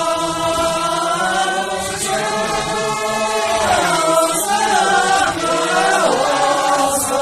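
A group of Sherpa men and women singing together in unison, holding long notes that slide up and down in pitch.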